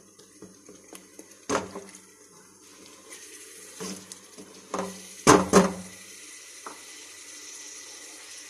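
A spatula stirring thick frying tomato masala in a non-stick pot, knocking against the pot several times, the loudest two close together about halfway through, over a faint steady sizzle.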